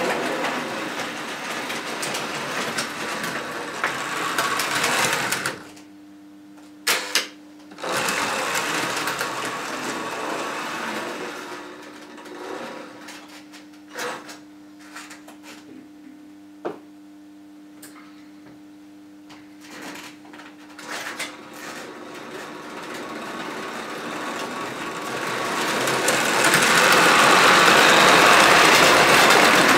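Tinplate 0 gauge electric model trains running on three-rail metal track: a whirring motor and wheels rattling on the rails. In the middle it drops to a low steady hum with a few sharp clicks, then grows loud near the end as a train of coaches passes close by.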